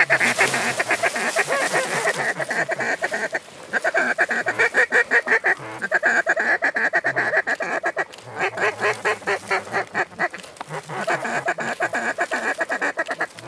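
Duck quacking and fast chattering calls, coming in runs of about two seconds with short breaks between, five runs in all.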